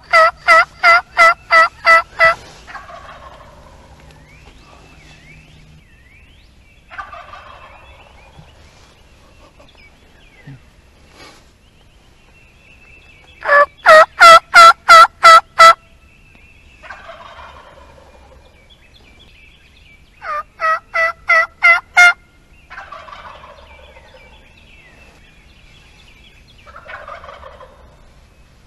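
A turkey call yelping close by in three loud runs of evenly spaced notes, about four a second: one at the start, one about 14 s in and one about 21 s in. A wild tom turkey answers from farther off with quieter, rattling gobbles that fall in pitch, about four in all, after the calling runs.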